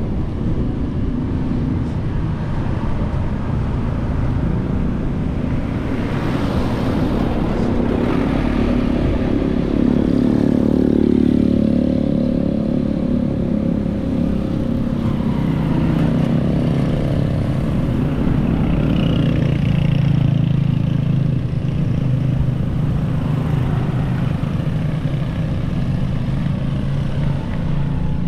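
Motor vehicle engine running at road speed, with wind rush. The engine note rises around ten seconds in and settles lower later on.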